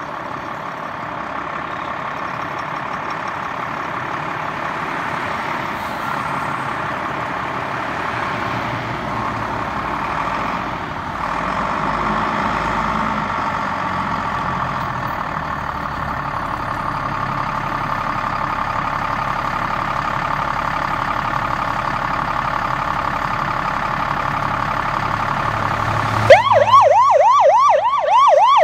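Fire engine responding with its siren sounding steadily over the rumble of its diesel engine as it rolls out of the bay. About 26 seconds in there is a short loud burst, and the siren switches to a fast yelp that sweeps up and down about four times a second.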